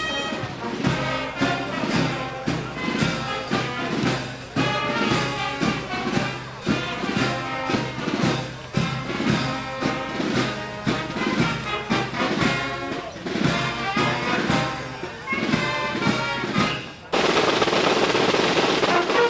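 Fire brigade brass band playing a march with a steady drum beat, about two beats a second. About seventeen seconds in, the music breaks off suddenly and a dense, even hiss takes over.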